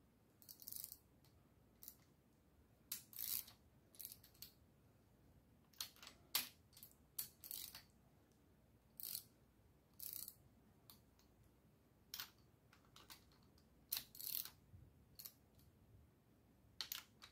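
Socket wrench on a V8's rocker-arm adjusting nuts, setting hydraulic-lifter valve lash: scattered short metallic clicks and brief ratcheting bursts at uneven intervals, with quiet pauses between them.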